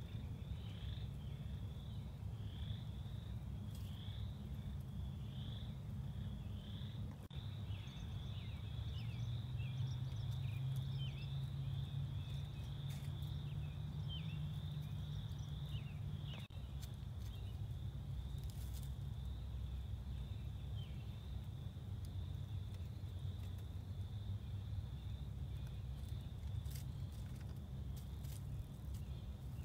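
Outdoor spring ambience: a steady low rumble runs under a continuous, faint, high-pitched chorus of short repeated chirps, with a few sharper calls in the middle.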